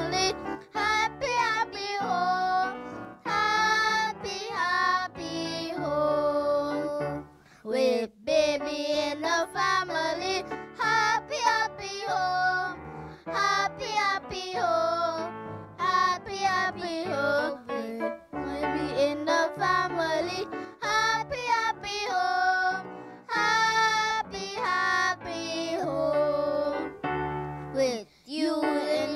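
Two young girls singing a children's Christian song into handheld microphones, over instrumental accompaniment with a steady bass line.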